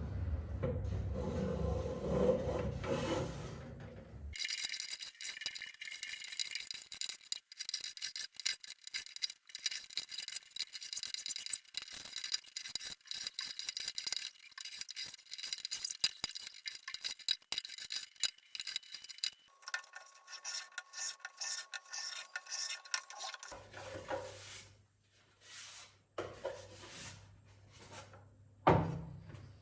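Hand tools working wood: dense, rapid rubbing and scraping strokes on wood, changing in character at cuts about 4, 19 and 24 seconds in.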